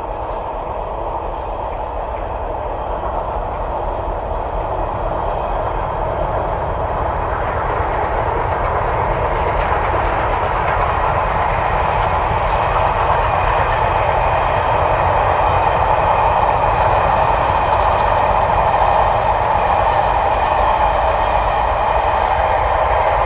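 Steam train hauled by Southern Railway West Country Class 4-6-2 Pacific 'Braunton' 34046, passing at a distance: a steady rumble that grows slowly louder as it nears.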